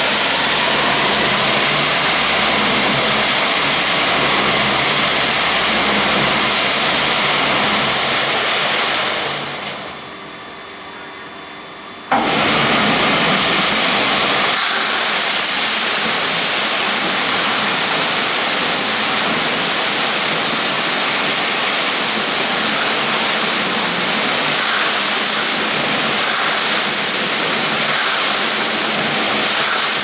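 Concrete mixer drum turning and discharging wet concrete down a steel chute: a steady, loud rushing noise with the machine running underneath. A little before halfway it fades down for a few seconds, then comes back abruptly at full level.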